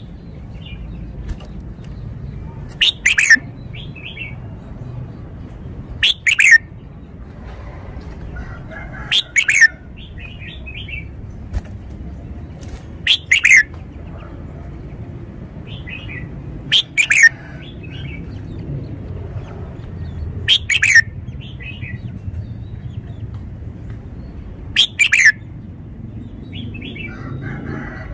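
Red-whiskered bulbul singing seven short, loud phrases about every three and a half seconds. Each phrase is two or three quick notes falling in pitch, with softer chattering notes between the phrases.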